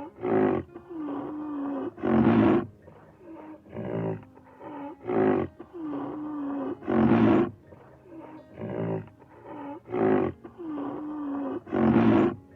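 Rhinoceros calls: short grunting calls, a drawn-out moan and a loud call. The same sequence repeats about every five seconds, as a looped recording.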